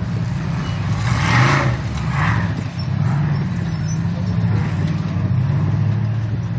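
Engines of two Ultra4 rock-racing buggies running as the cars crawl over boulders, the engine pitch rising and falling with the throttle.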